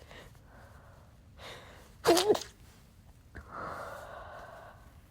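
A person's stifled sneeze, set off by nose irritation from cleaning-product fumes: a short intake of breath, then a sharp, loud, brief sneeze with a bit of voice in it about two seconds in, followed by a long breathy exhale.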